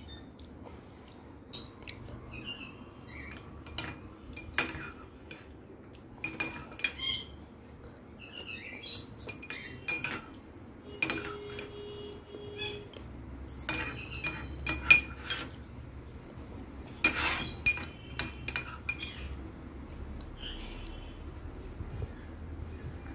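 Steel spoon clinking and scraping against a small glass bowl as semai payesh is scooped up: scattered sharp clinks that ring briefly, the loudest about 15 seconds in.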